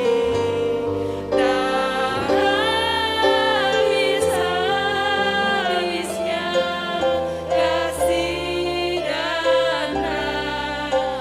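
Music: a worship song sung over instrumental accompaniment, with long held and gliding vocal notes.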